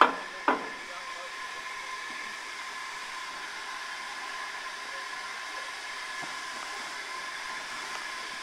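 Two sharp metallic clanks in the first half-second, then a steam locomotive hissing steadily, with a steady high whine running under the hiss.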